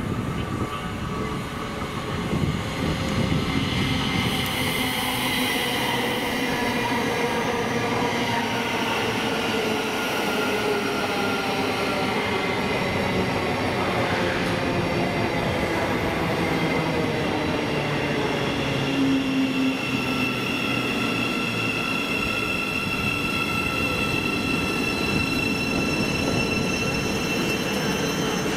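Train running at the station, a loud steady rumble with several whining tones that slide down in pitch over the first half and then hold level.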